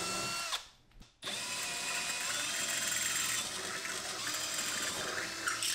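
Cordless drill running, boring a 1/4-inch hole through aluminum angle iron. It stops for a moment about a second in, then runs steadily again for about four seconds.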